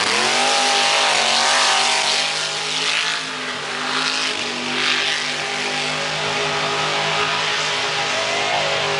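Lifted 4x4 mud truck's engine running at high revs as it powers through a mud pit. The pitch climbs sharply at the start, then holds high with a brief dip partway through.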